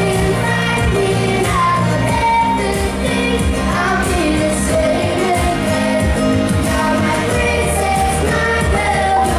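Live pop song: a solo singer's voice over a steady accompaniment with a sustained bass line.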